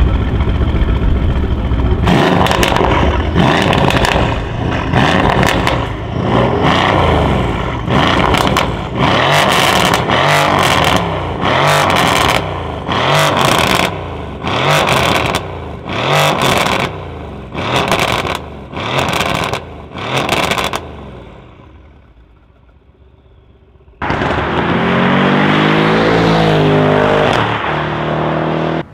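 Mercedes-AMG C-Class estate engine idling, then revved in about fifteen sharp blips, roughly one a second, before it settles. Near the end a car drives past at speed, its engine note falling in pitch as it goes by.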